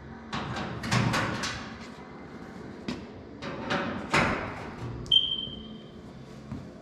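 Fasteners being worked out along the edge of a race car's sheet-metal door panel: a run of short clattering, scraping bursts and knocks, the loudest about a second in and about four seconds in.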